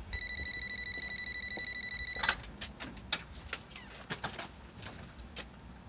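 A high electronic alarm buzzer beeping in a fast pulsing tone, like an alarm clock. About two seconds in it cuts off at a sharp click. A run of scattered clicks and knocks follows as the storm door is opened.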